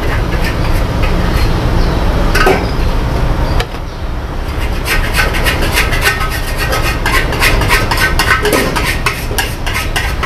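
Metal spatula scraping and clattering rapidly against a wok while noodles are stir-fried, with a brief lull a little under four seconds in.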